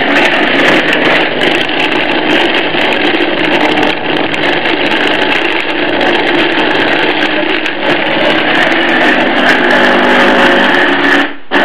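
Hand blender motor running on a chopper bowl attachment, its blade chopping chunks of beef, pork, onion and garlic into mince. It runs steadily, cuts out briefly near the end, then starts again.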